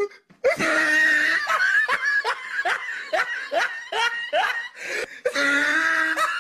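A person laughing loudly: a drawn-out sound, then a quick run of short 'ha' bursts, each rising in pitch, about three a second, then another drawn-out sound near the end.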